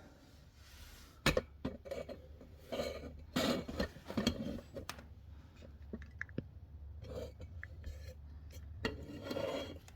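Loose steel parts from a motorcycle's primary drive and compensator assembly being handled, clinking and knocking against each other several times, with sharper clanks about a second in and again around three to four seconds in.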